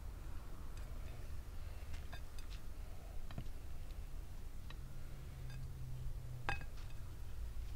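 Scattered light clicks and taps over a low steady rumble; the sharpest tap comes about six and a half seconds in.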